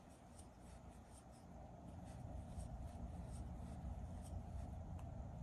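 Faint soft rubbing and light irregular ticks of a crochet hook pulling wool yarn through loops, working a foundation chain, over a low steady hum.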